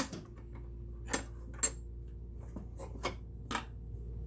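Metal parts of a Singer 328K sewing machine clinking and clicking as they are handled and slid apart, a handful of sharp clicks with the two loudest about a second and a half second apart. A steady low hum starts with the first click.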